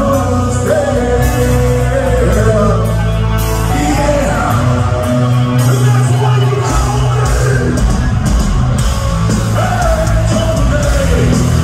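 Heavy metal band playing live, with a male lead vocal sung over electric guitar, bass and drums. The lowest notes drop out for about a second and a half midway.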